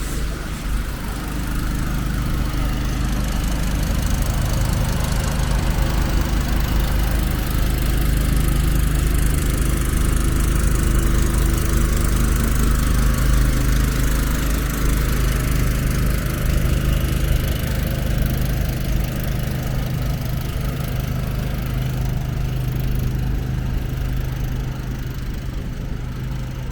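A motor vehicle's engine running steadily close by, a low hum with a steady pitch. It swells about two seconds in and eases off near the end.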